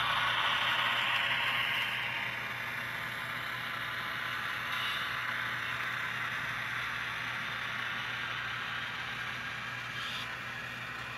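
Model freight train cars rolling along the track: a steady rattle of small wheels on rail, easing slightly about two seconds in, over a low steady hum.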